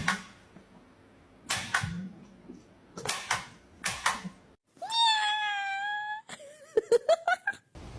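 Cat sounds: short sharp noisy bursts, several in pairs, then a long steady high meow about five seconds in, followed by shorter wavering calls with clicks.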